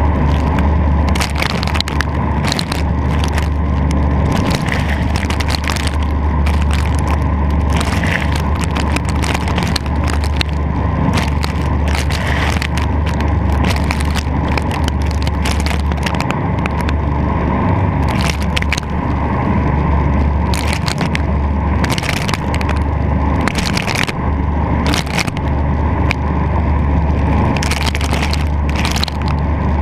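A Silverton boat running under way: water rushing and spraying along the hull over a steady low engine drone, with frequent sharp, irregular splashes as waves and spray strike the hull.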